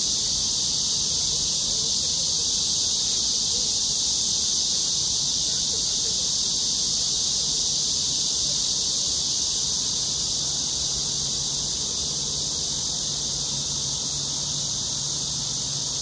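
A dense, steady, high-pitched chorus of summer insects.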